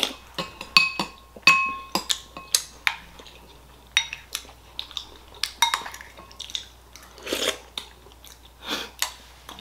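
Ceramic soup spoon clinking and scraping against a ceramic bowl of congee, many short clicks, a couple of them in the first two seconds ringing on with a clear tone, with slurping sips of the porridge in between.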